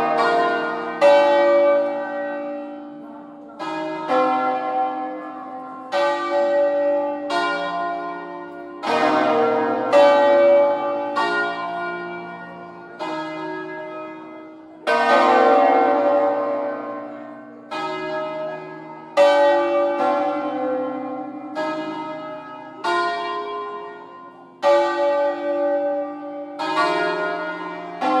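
A full peal (distesa) of five hand-rung church bells in B-flat, cast by Felice Bizzozero of Varese in 1859, swinging full circle on their wheels in the Ambrosian manner. The strikes come every second or two, each ringing on and fading beneath the next.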